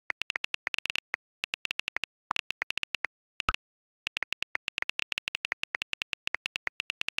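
iPhone keyboard key clicks in quick typing runs, with a single WhatsApp message-sent pop about halfway through.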